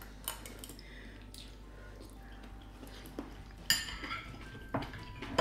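Metal spoons clinking against ceramic bowls while eating, a few separate clinks, the sharpest about three and a half seconds in.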